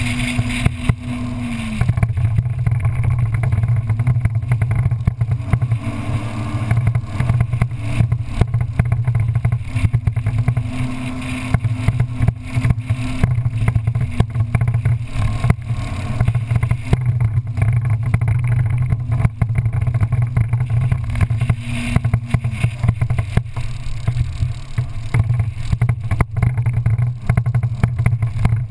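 Off-road vehicle engine running steadily as it drives along a sand track, a constant low drone with a rough rumble over it and a higher engine note that comes and goes.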